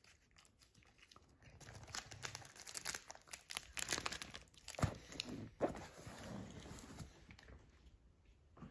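Crinkling and crackling of a small candy wrapper being handled and unwrapped by hand, in irregular bursts, busiest in the middle, with a couple of sharper crackles about five seconds in.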